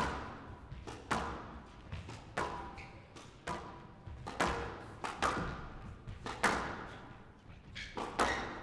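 Squash rally: the ball struck by rackets and hitting the court walls, sharp knocks about once a second, each with a short echo off the court.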